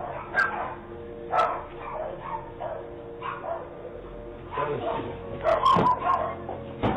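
A dog barking repeatedly in short barks, about once a second at first, then a quicker run of barks about two-thirds of the way through.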